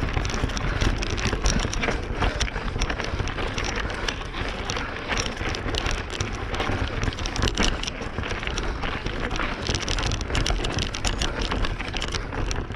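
Mountain bike tyres crunching and crackling over loose gravel and rocks on a climb, with the bike rattling and wind buffeting the microphone in a low rumble.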